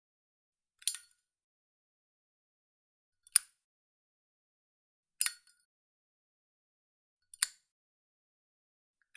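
Zippo lighter lid being flipped open and snapped shut: four sharp metallic clicks about two seconds apart.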